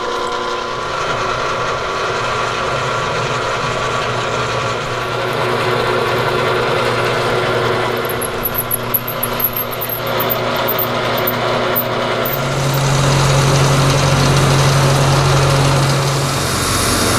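Milling machine running a half-inch end mill that cuts into a 4140 steel axle adaptor clamped on a rotary table. About twelve seconds in, the cut turns louder and steadier as the table is turned by hand.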